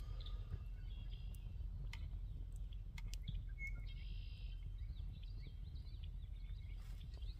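Birds chirping faintly, a run of quick high chirps from about three to six and a half seconds in, over a low steady rumble.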